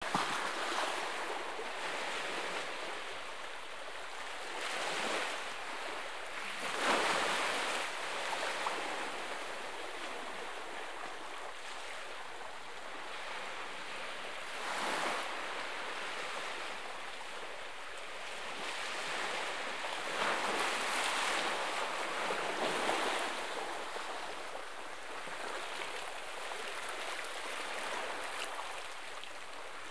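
Small sea waves lapping and washing onto a rocky shore: a steady rushing hiss of water that swells every few seconds, with the louder washes about seven and fifteen seconds in and again a little after twenty.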